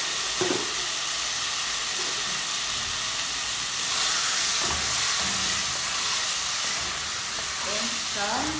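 Dry rice and cumin frying in hot oil in a pan, a steady sizzle that swells a little midway, with a couple of short knocks as it is stirred.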